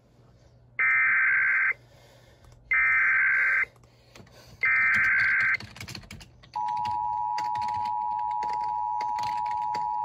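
Emergency Alert System SAME header for an Amber Alert: three one-second stretches of digital data tones, about a second apart. About six and a half seconds in, the steady two-tone EAS attention signal begins and holds.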